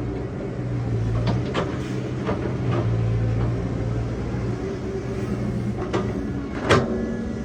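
Excavator diesel engine running steadily, with several sharp knocks from the machine working, the loudest near the end.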